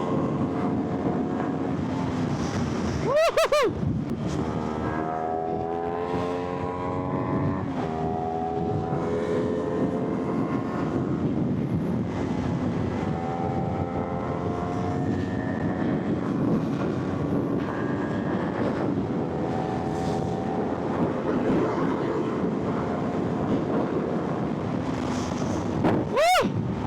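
Motorcycle engine running under way over wind rush, its pitch rising as it pulls through the revs several times. A short, sharp rise and fall in pitch comes about three seconds in and again near the end.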